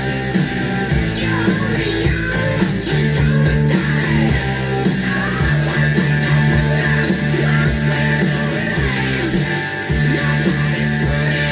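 Rock music with guitar playing, continuous and fairly loud.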